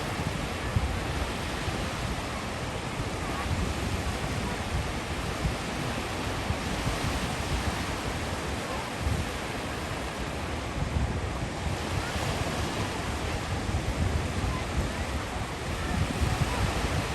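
Sea waves breaking and washing on the shore, a steady surf wash, with wind buffeting the microphone.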